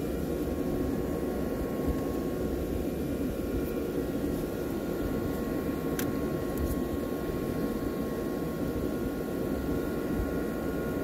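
Steady drone of running boat machinery, with several faint steady whine tones above it and a single light click about six seconds in.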